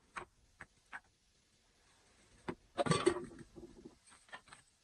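Light steps on a packed-earth floor, then a clatter of metal about three seconds in as a black metal kettle is picked up, followed by a few softer knocks.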